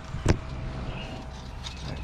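A single sharp knock about a third of a second in, over a steady low rumble.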